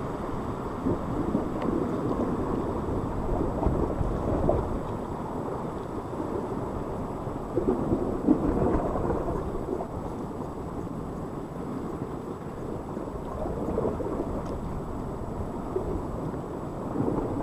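Sea surf washing against a rock ledge, swelling and easing every few seconds, under a low rumble of wind on the microphone.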